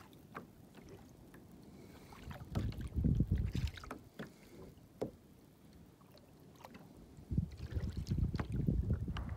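Water sloshing and splashing against a kayak's hull in two spells, the second near the end, with scattered small drips and ticks between.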